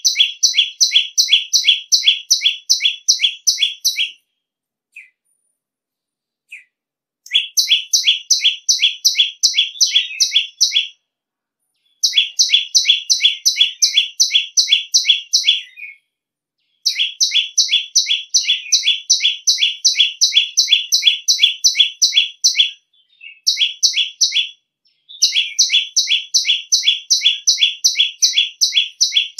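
Common tailorbird calling loudly: rapid strings of sharp, shrill repeated notes, about five a second, in bouts of several seconds separated by short pauses. There are a couple of lone notes in the longer gap near the start.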